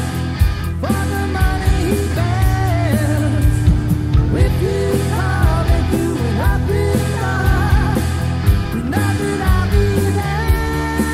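Rock band song from a 1991 demo recording: a full band with drums, steady bass and a wavering lead melody, playing without a break.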